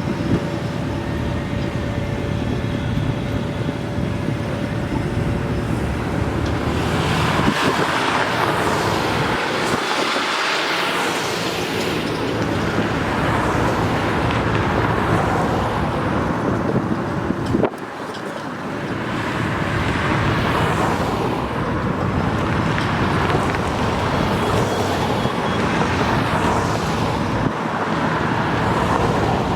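Road traffic passing steadily, with louder swells as vehicles go by, about seven seconds in and again around twenty seconds.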